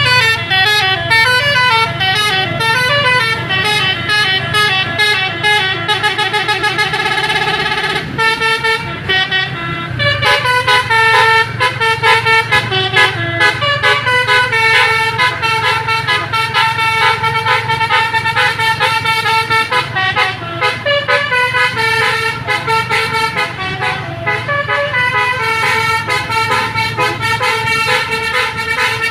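Bus 'telolet' musical horns playing a rapid, tuneful run of several notes at once, continuously, over a steady low rumble. The tune changes abruptly about eight seconds in.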